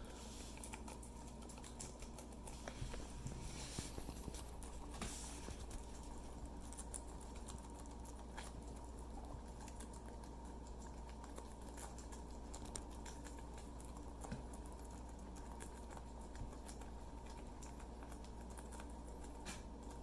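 Guinea pigs eating and moving about: faint scattered clicks and small crunches, busiest a few seconds in.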